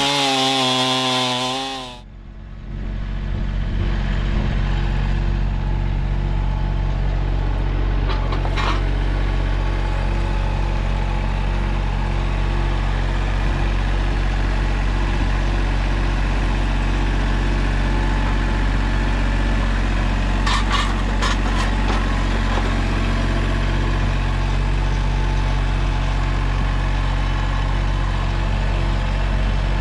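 A STIHL chainsaw running at full throttle through a log for about two seconds, then giving way to a Mahindra 1626 compact tractor's three-cylinder diesel engine running steadily. A couple of short clicks come through the engine sound, near the middle and about two-thirds in.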